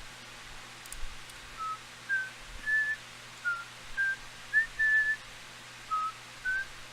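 A person whistling a tune: a run of short, clear notes stepping up and down in pitch.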